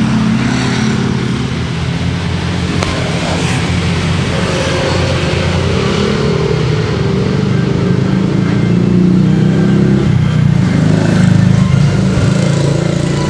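An engine running steadily with a low drone, a little louder near the end.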